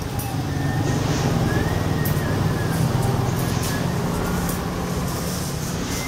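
A motor vehicle engine running close by amid street traffic, a steady low rumble that starts abruptly at the beginning. Under it are a few light metallic clicks of steel bicycle spokes being handled.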